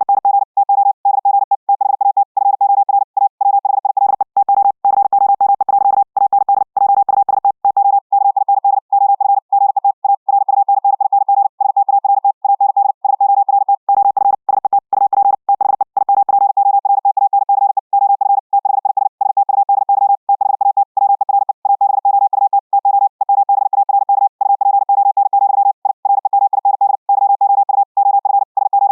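High-speed Morse code (CW) at about 60 words per minute: a single mid-pitched tone keyed on and off in rapid dits and dahs, received after passing over the internet through the Vorbis audio codec. In two stretches, about four seconds in and again near the middle, the keying turns clicky.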